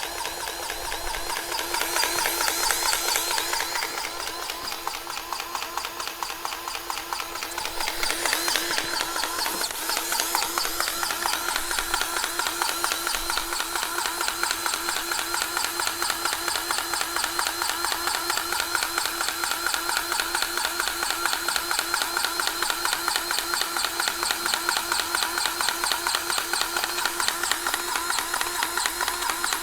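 Grease gun pumping grease into a skid steer's empty track tensioner cylinder, a steady fast mechanical pulsing that keeps going without a break; the tensioner is filling and pushing the idler out to tighten the track.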